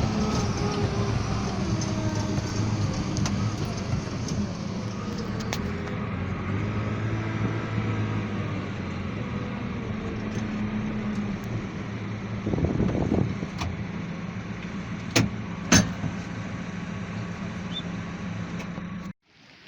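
A vehicle engine running steadily, its pitch shifting a little up and down, with two sharp clicks about three-quarters of the way through; the sound cuts off suddenly near the end.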